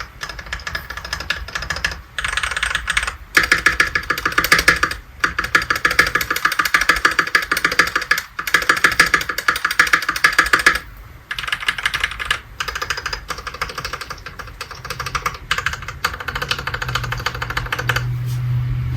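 Fast typing on a Keychron V1 mechanical keyboard with lubed Keychron K Pro Brown tactile switches, GMK keycaps and stock stabilizers: rapid runs of keystrokes broken by brief pauses, loudest in the middle. A low steady hum comes in during the last few seconds.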